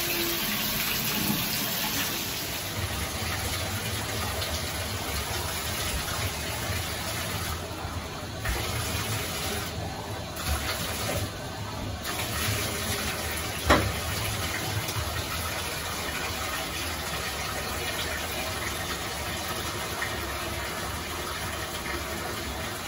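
Bathtub tap running steadily, water gushing into a filling tub, with one sharp knock a little past halfway.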